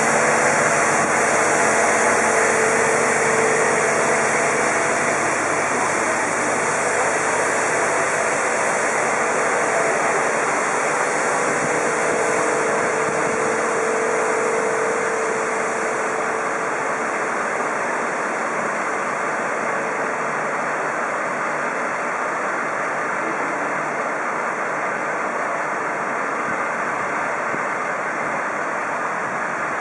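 Steady rush of street traffic with the engines of fire engines and an ambulance running, no sirens, slowly growing quieter.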